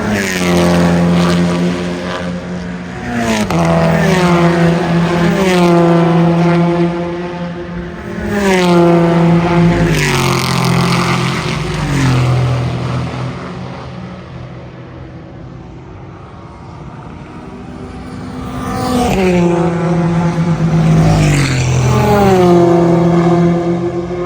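Race cars passing one after another trackside, their engines loud and swelling in several waves, with the engine note falling in steps as each car goes by. There is a quieter lull in the middle before the next cars come through.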